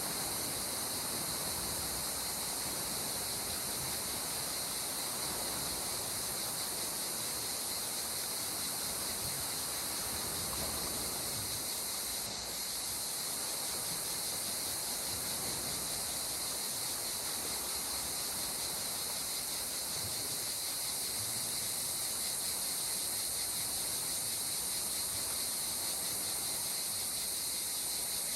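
Calm sea water washing steadily, under a continuous high-pitched chorus of insects.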